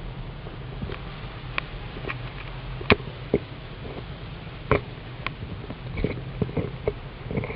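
A kitten playing on a fabric bedspread: scattered light taps and rustles of its paws and claws, with two sharper taps about three and five seconds in, over a low steady hum.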